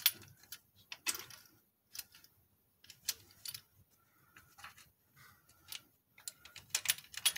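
Irregular light metallic clicks and clinks of steel rocker arms and their bolts being handled and seated onto the push rods of a Jeep 4.0 inline-six, with a quicker run of clicks near the end.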